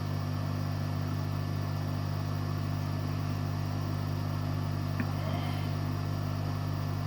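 Steady drone of a hot air rework station's blower heating a surface-mount MOSFET to desolder it from a motherboard, with a faint tick about five seconds in.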